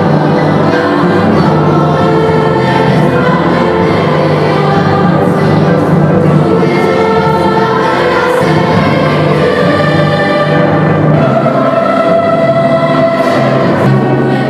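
Large mixed choir of adult and children's voices singing held chords, with an orchestra accompanying.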